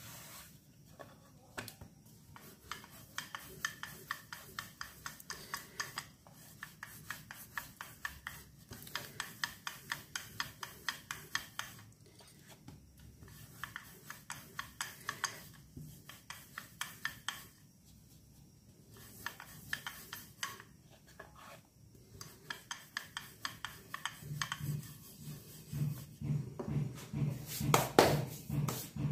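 Wooden rolling pin rolling out a stuffed cauliflower paratha on a floured wooden board: quick, rhythmic rubbing and clicking strokes, several a second, in runs broken by short pauses. A low, rapid knocking joins near the end and grows louder.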